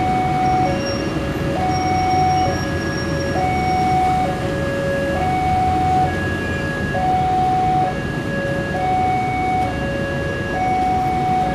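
Indonesian railway level-crossing alarm sounding its two-note electronic chime, a higher and a lower tone alternating about once a second, over the low rumble of a train.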